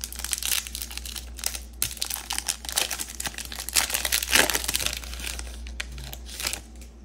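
Crinkling of a Topps Series One baseball card pack's foil-lined wrapper as it is handled and torn open: a dense run of crackles that thins out near the end.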